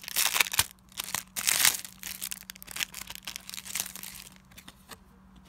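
Crinkly packaging being handled, crackling busiest in the first couple of seconds and dying away after about four.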